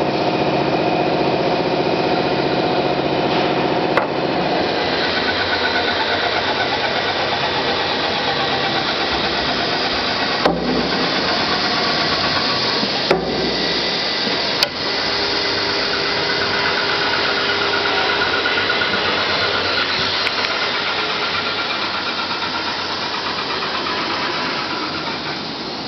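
CNC router running: a steady machine drone of motors, broken by a few sharp clicks.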